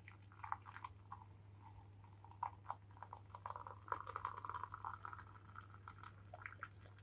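Hot water poured in a thin stream from an electric kettle into a mug: a faint trickle with small splashes, over a steady low hum.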